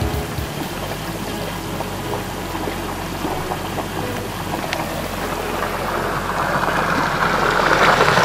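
Hot water welling up and flowing out of a geothermal borehole's outlet, a steady rush of water that grows louder toward the end.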